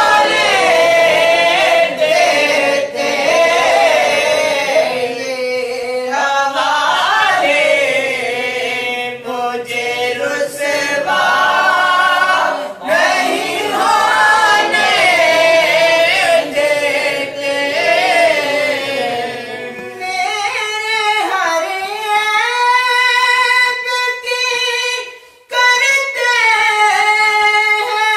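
Unaccompanied naat sung by men's voices, with other voices joining in. About two-thirds of the way through, the singing thins to one clear voice holding long notes, with a brief break near the end.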